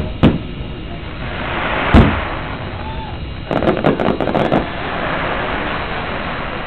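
Fireworks display: an aerial shell bursts with a sharp bang just after the start and a louder boom about two seconds in, followed by a quick run of crackling pops around four seconds in.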